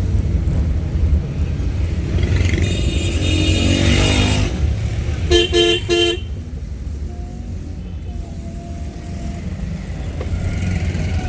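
Street traffic heard while riding a motorcycle, with a steady low rumble of wind and engine. A vehicle horn sounds for about two seconds, then three short horn toots come in quick succession about five seconds in.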